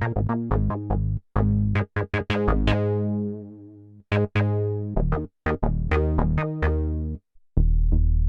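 A Kurzweil K2vx synthesizer preset played from the keyboard: a run of short, separate notes, then a held low note with heavy bass starting about seven and a half seconds in.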